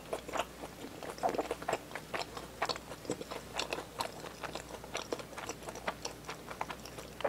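Close-miked chewing of fried food: irregular wet mouth clicks and smacks, several a second.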